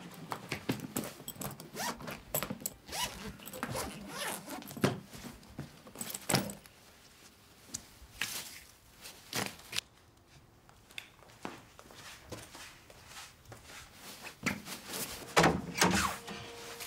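Packing a suitcase by hand: clothes rustling as they are pushed in, zipper runs and the clicks and knocks of handling the case, in many short strokes, with a few louder ones near the end.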